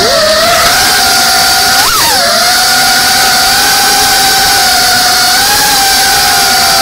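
Brushless motors and ducted 3.5-inch propellers of a GEPRC Cinelog 35 FPV cinewhoop drone whining steadily in flight. About two seconds in, the pitch jumps up briefly and drops back as the throttle changes.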